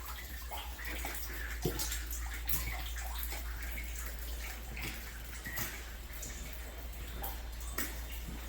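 Water still pouring down through a fallen drop ceiling from a burst hot water supply line, splashing and dripping steadily onto the floor below, with irregular splats.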